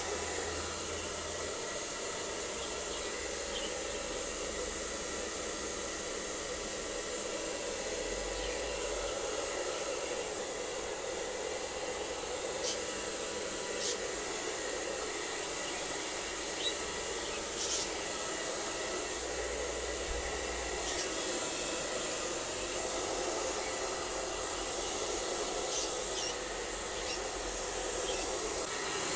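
Handheld electric hair dryer blowing steadily, a constant airy hiss, aimed at a wet dog's coat after a bath. A few faint clicks come now and then.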